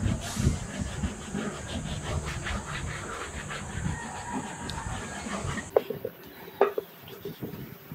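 A white eraser block scrubbed quickly back and forth over the smooth Oro Legacy leather of a Red Wing 8-inch Moc Toe boot, about four strokes a second, rubbing off indigo dye transferred from selvedge denim. The scrubbing stops about two-thirds of the way through, followed by two or three sharp clicks.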